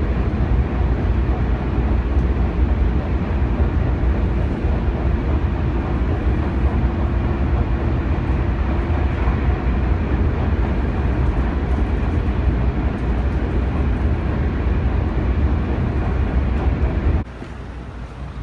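Steady noise of a moving vehicle: a deep rumble with a faint steady hum over it, cutting off abruptly near the end.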